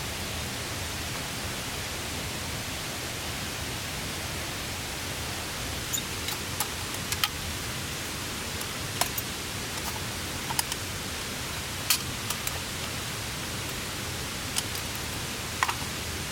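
Wood campfire crackling, with sharp pops scattered irregularly over a steady hiss of rain on a tarp.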